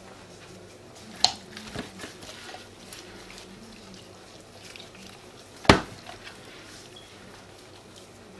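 Handling noises from seasoning raw chickens: scattered light clicks and knocks of a tray and spice containers being moved, with one sharper knock about two-thirds of the way through, over a low steady hum.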